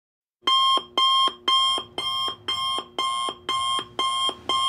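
Electronic timer alarm beeping as the countdown reaches zero: a rapid, evenly spaced run of short shrill beeps, about two a second, starting about half a second in.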